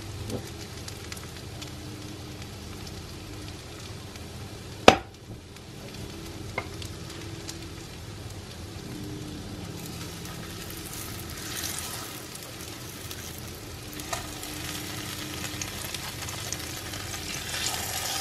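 Hot oil sizzling in a non-stick frying pan as cottage-cheese patties (syrniki) are laid into it. The sizzle swells about two-thirds of the way through and again near the end as patties go in. A single sharp knock about five seconds in is the loudest sound.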